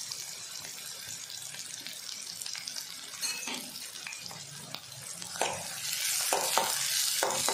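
Chopped onion sizzling in hot oil with whole spices, frying until it turns translucent. About five seconds in, a spatula starts stirring it, scraping and clicking against the pan.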